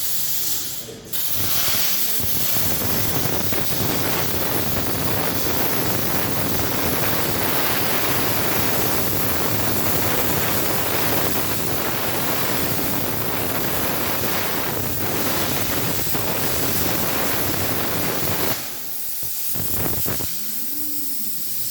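Plasma cutting torch on a SteelTailor Dragon III CNC table cutting steel: a steady, dense hiss with a crackle, starting about a second in after a brief dip. It cuts off suddenly near the end, leaving a softer hiss of air.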